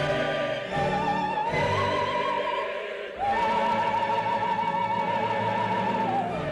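Operatic soprano singing with wide vibrato over an orchestra. A phrase climbs to a high note, and about halfway through she holds a long high note for about three seconds before falling away near the end.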